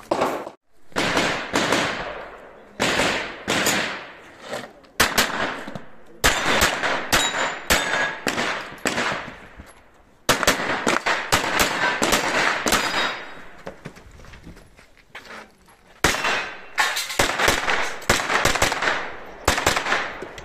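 Strings of rapid gunshots from practical-shooting (IPSC) competition firing, sharp cracks in quick groups with short pauses between them, each shot trailing a long echo off the range walls.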